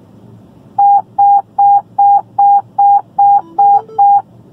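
Fire radio alert tone: nine short beeps of one steady pitch, about two and a half a second, with a lower second tone briefly joining under the last few. It sounds over the dispatch channel just before a broadcast to all units.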